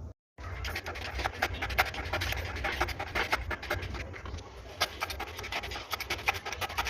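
Hand tool scraping and clicking on metal engine parts: rapid, irregular scratching that starts just after a momentary dropout and keeps on.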